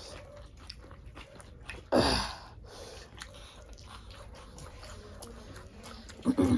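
Chewing and small wet mouth clicks of people eating rice and curries by hand, with one louder short noise about two seconds in and another near the end.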